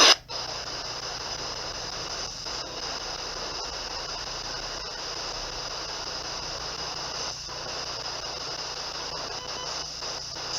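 Ghost box radio scanner sweeping the radio band, giving a steady hiss of static with a faint hum beneath and brief dips now and then.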